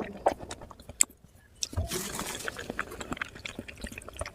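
Close-up wet eating sounds from oily mutton curry: a string of sharp mouth clicks and squelches, with a longer wet stretch about two seconds in.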